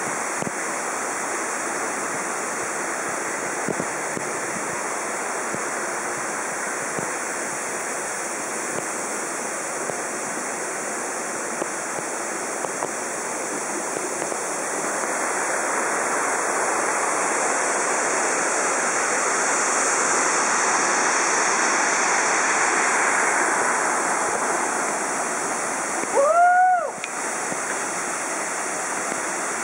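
Waterfall pouring steadily, a constant rushing that swells louder for several seconds in the middle. Near the end a brief high call rises and falls over it.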